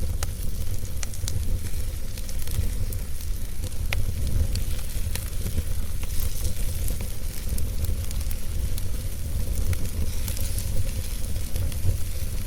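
Wood fire burning and crackling: scattered sharp pops and snaps over a steady hiss and a low rumble.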